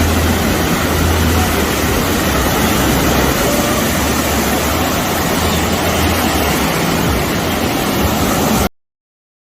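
Steady rushing of sea surf, with an uneven low rumble; it cuts off suddenly near the end.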